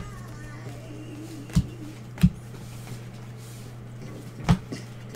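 Gloved hands handling a stack of baseball trading cards at a desk, with three sharp knocks (about a second and a half in, just after two seconds, and near the end) over a steady low hum.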